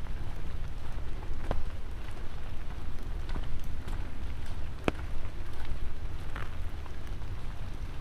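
Light rain falling, with scattered close raindrops tapping sharply, the loudest about five seconds in, over a steady low rumble.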